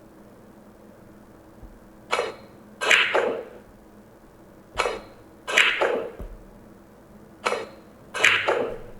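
Billiard ball sound effect: three times over, a single sharp click is followed about two-thirds of a second later by a quick cluster of clacks.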